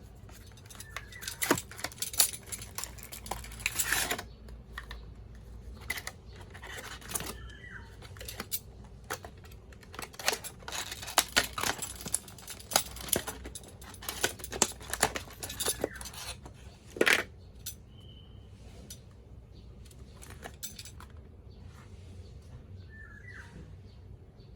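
Unboxing handling noises: packaging and a small adapter being handled, with clusters of sharp clicks, taps and rattles and one louder knock about 17 seconds in, then only light handling.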